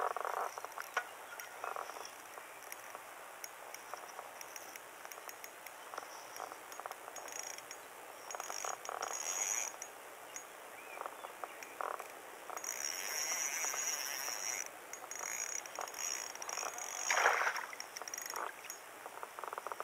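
Frogs calling in the background while a spinning reel is cranked in short clicking turns, and a hooked largemouth bass splashes at the surface about seventeen seconds in as it is drawn alongside.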